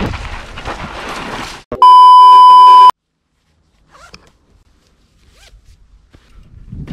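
A loud, steady electronic beep at one pitch, about a second long, cuts in after rushing wind noise on the microphone and stops abruptly. Near silence with a few faint small sounds follows.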